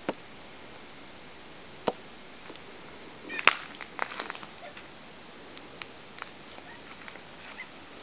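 Water spraying from a garden hose with a steady hiss while an Australian magpie bathes in the spray, with scattered sharp clicks and patters of splashing. The loudest cluster comes about three and a half seconds in.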